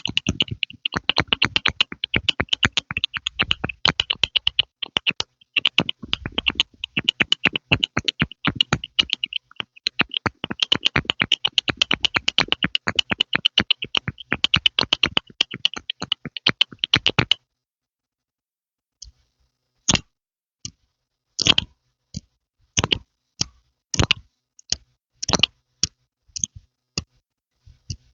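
ASMR 'pumping' mouth sounds: a fast, continuous run of wet pops and clicks made with the mouth close to the microphone. It stops about 17 seconds in, and after a pause of about two seconds it goes on as slower, separate pops.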